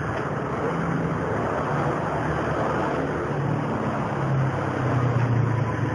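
Street traffic: vehicle engines running with a low hum that shifts in pitch about four seconds in, over a steady rush of road noise.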